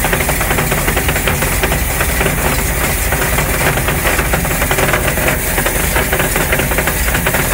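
Inboard marine engine idling with its Paragon P44R reduction transmission engaged in gear and the propeller shaft disconnected: a steady, dense knocking rattle from the gearbox. It is the sound of a rear reduction gear set whose teeth are coming apart.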